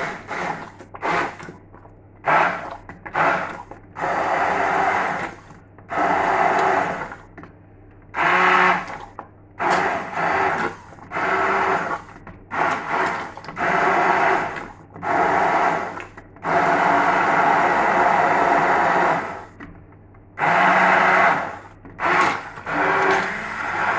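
Kitchen blender pulsed on and off over and over, puréeing a soft cooked-down tomato and onion sauce: more than a dozen bursts, most under a second, a few longer, the longest about three seconds.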